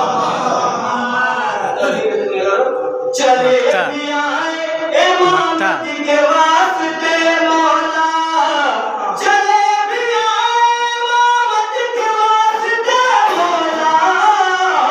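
A man singing an Urdu devotional kalam through a microphone and PA, a melodic recitation with long held notes that glide between pitches.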